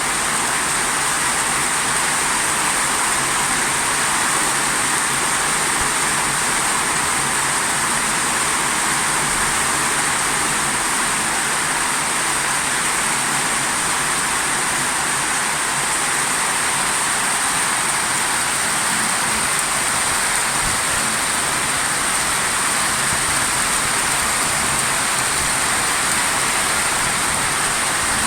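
Torrential water: a steady, even hiss of heavily falling or rushing water, unbroken throughout.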